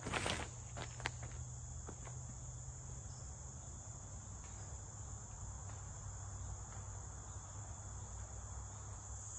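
Steady high-pitched insect chorus running throughout. Right at the start there is a short burst of noise as a disc golf drive is thrown, followed by a couple of faint knocks.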